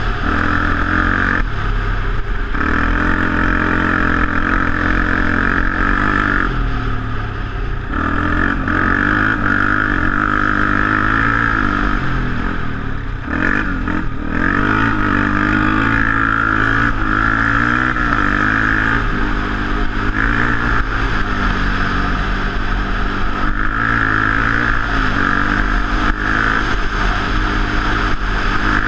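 Dirt bike engine running hard along a gravel trail. The throttle opens and eases off every few seconds, with the pitch rising and falling through gear changes.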